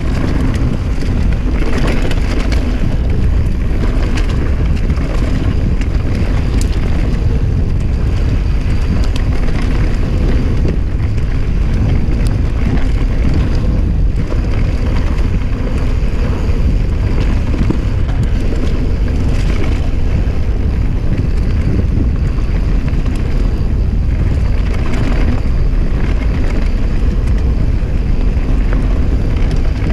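Wind buffeting the camera microphone of a mountain bike riding fast downhill, with the tyres rolling over a dirt trail and light rattles and clicks as the bike goes over bumps.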